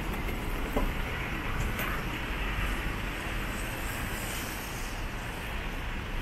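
Steady city traffic noise on rain-wet streets, an even hiss of tyres and engines passing, with a brief faint knock about a second in.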